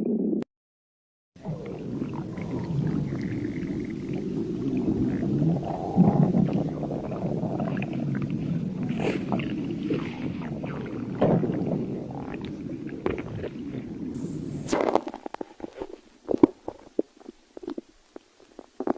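Stomach growling: a long, continuous gurgling rumble that starts about a second in and stops abruptly about 15 seconds in, followed by scattered faint clicks.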